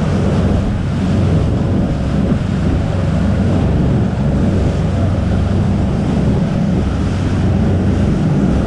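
Boat running at speed on open water: wind buffeting the microphone over the rush of spray and water along the hull, with a steady low engine drone underneath.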